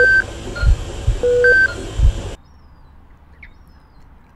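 Electronic beeps, each a low note followed by a higher note, sounding twice about a second and a half apart, with dull low thumps in between. The sound cuts off suddenly about two and a half seconds in, leaving faint room tone with a few faint high chirps.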